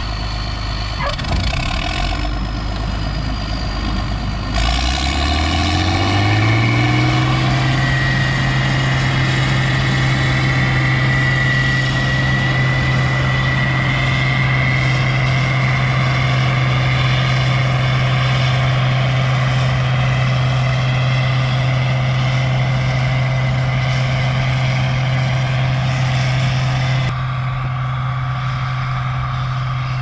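Combine engine throttling up from a low idle to full speed over a couple of seconds, then running steadily at high rpm. A thin high whine joins in as it holds speed. The sound changes abruptly a few seconds before the end.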